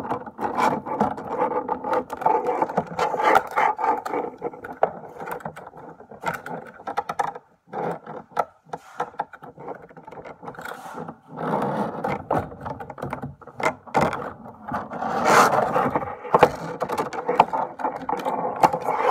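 Plastic toy packaging handled close to the microphone as small figures are pushed out of it: crinkling, scraping and clicks, in two busy stretches with a quieter gap in the middle.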